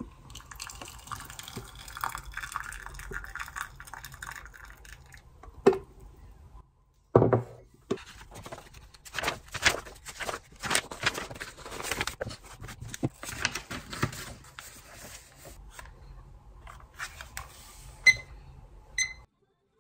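Hot water poured from a kettle into a ceramic mug, a steady splashing for about six seconds. Then paper rustles as notebook and textbook pages are turned and handled, with two short high beeps near the end.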